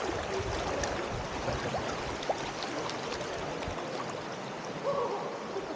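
Flowing river water: a steady rush of noise with small splashes and trickles.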